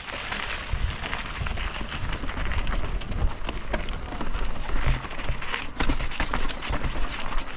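Mountain bike riding down a rocky trail: tyres crunching over stones, with frequent irregular clicks and knocks from the bike, and wind rumbling on the microphone.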